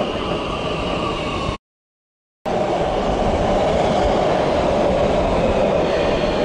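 Oslo metro (T-bane) train running past close by with a steady rolling noise. It cuts off to dead silence for about a second, then a second metro train is heard passing, a little louder.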